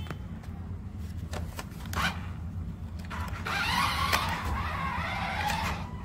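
Twin electric drive motors of a remote-control formula racing car whining as it drives across artificial turf. The sound gets louder about three seconds in, with a wavering pitch as the speed changes.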